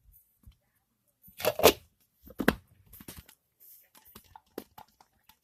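Handling noise from a toy egg and a squishy being picked up and fumbled with: two loud rustling scrapes about a second and a half in, then a run of small clicks and rustles.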